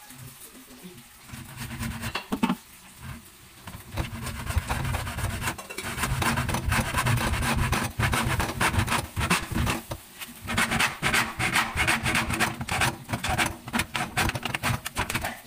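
Hacksaw cutting through an orange plastic (PVC) drain pipe, a rapid back-and-forth rasping of the blade in the cut. The sawing picks up about four seconds in and pauses briefly twice.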